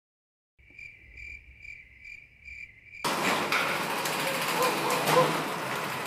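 Cricket chirping at about two chirps a second. About three seconds in, a loud, harsh garage-door noise starts suddenly, with repeated squeaks in it: a noisy garage door in need of servicing.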